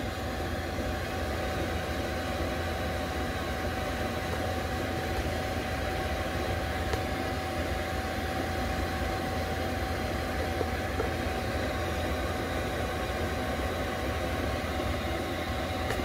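Cheap Chinese diesel air heater running at full heat, blowing about 200°F air: a steady low hum from its blower and burner with a constant thin tone above it.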